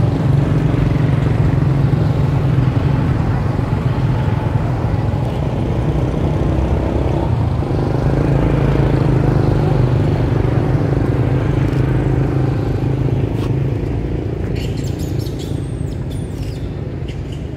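A motor vehicle engine running steadily close by, a loud low hum that eases off slightly near the end.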